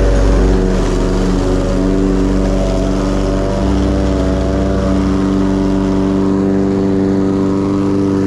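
Lawn mower engine running steadily, a continuous drone under a deep bass that shifts in steps every second or so.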